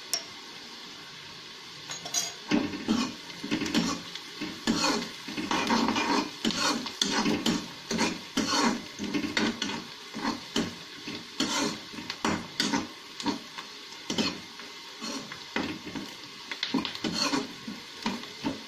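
A metal slotted spoon stirring and scraping frying onions, garlic and red chilli around a kadhai in repeated strokes, about one or two a second, over a low sizzle of hot oil. The stirring starts about two seconds in.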